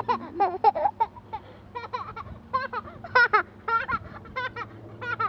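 A toddler giggling and laughing in many short, high-pitched bursts.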